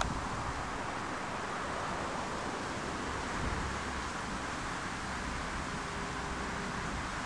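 Steady wind noise, an even hiss with no distinct tone or sudden sounds.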